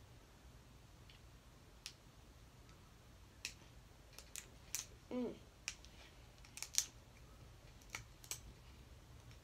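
Cooked snow crab shell being cracked and peeled apart by hand: a dozen or so small, sharp clicks and snaps scattered irregularly, with a brief voice sound about halfway through.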